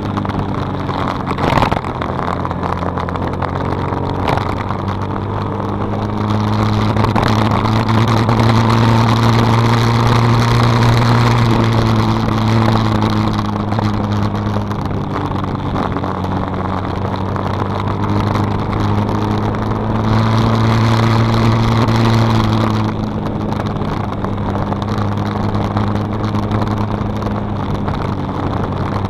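Small light manual-gear motorcycle engine running under way, with a steady drone and a rush of road and wind noise. The revs rise and the engine gets louder twice: about a quarter of the way in, and again around three quarters of the way in.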